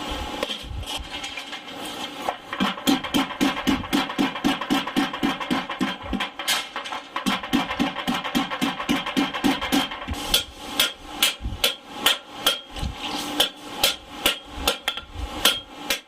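Hand hammer striking a steel kitchen-knife blade on an anvil during shitagitae hammer-shaping: fast, even strikes at several a second, with the metal ringing under them.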